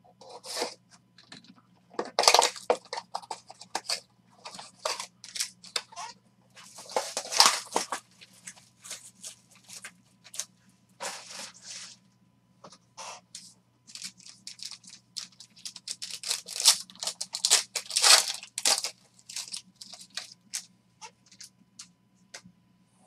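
Packaging of a sealed trading card box being cut open with a knife and torn, then a foil card pack ripped open: irregular crinkling and tearing of plastic wrap and foil. A faint steady hum runs underneath.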